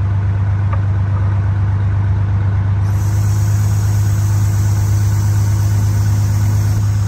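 1983 Thibault ladder fire truck's engine running steadily with a loud, deep, even drone.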